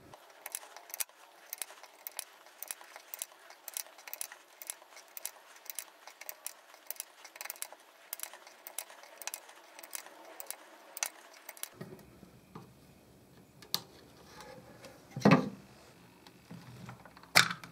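Rapid light clicking, about three clicks a second, as rubber bands are loaded one by one into a wooden rubber band gun's magazine; the clicking stops about twelve seconds in. Two sharper knocks follow near the end as the wooden stock is handled.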